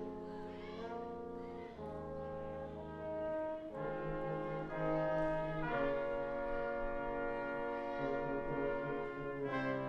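Brass quintet of two trumpets, French horn, trombone and tuba playing held chords that change every second or two over a tuba bass line, getting louder about four seconds in and again near six seconds.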